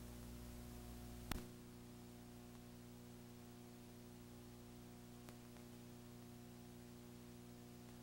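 Near silence: a steady electrical hum with a faint hiss underneath. A sharp click comes just over a second in, after which the lowest part of the hum drops away. A much fainter click follows about five seconds in.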